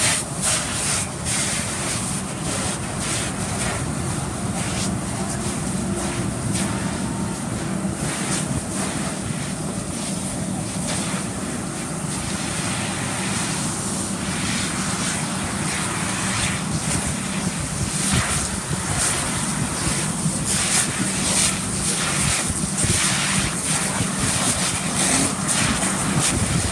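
Steady rushing hiss of a fire hose stream spraying onto a burning car, with a vehicle engine running underneath.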